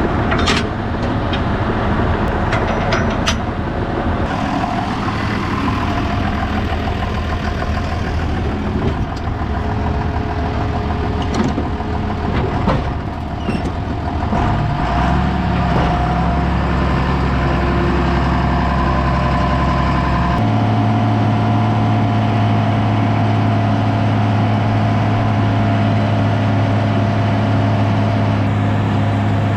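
Farm tractor engine running steadily while pulling a loaded chopper box, its note shifting about halfway through and changing again to a steady hum about two-thirds of the way in, with a few sharp clicks in the first seconds.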